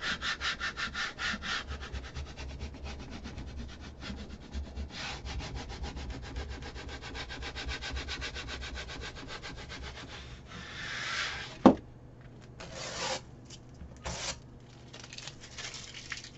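Adhesive vinyl being burnished down onto a ceramic tile: fast back-and-forth rubbing, about four or five strokes a second, growing fainter over the first ten seconds. Near twelve seconds in there is a single sharp knock, the loudest moment, followed by a few short scraping rasps.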